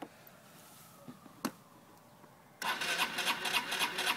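A click, then the electric starter of a 1985 Honda Elite 150's liquid-cooled single-cylinder engine cranking it over with an even churning pulse about five times a second. The engine does not catch, which the owner puts down to the kill switch.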